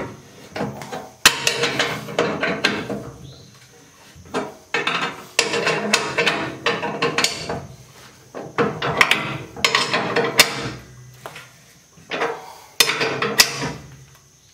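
Socket ratchet clicking in repeated bursts of rapid clicks as a bolt is tightened, stroke after stroke, with a few single sharp metal clanks.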